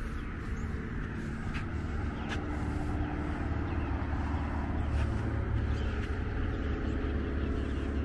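Steady low rumble of road traffic, swelling a little around the middle, with a few brief chirps of birds over it.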